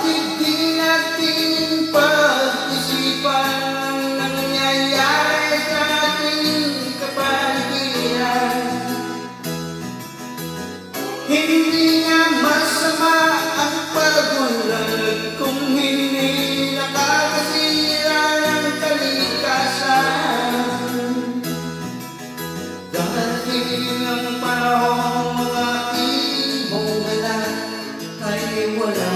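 A man singing a Tagalog song into a handheld microphone over instrumental backing music.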